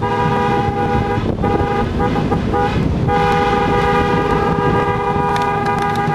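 1957 Volkswagen Beetle's horn stuck on and sounding by itself: one steady tone that drops out briefly a few times in the first three seconds, then holds unbroken. The horn is going off through a fault in its wiring.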